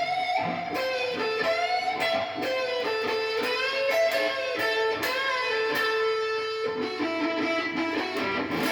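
Electric guitar playing a fast lead line of single notes, with several string bends that slide the pitch up and back down.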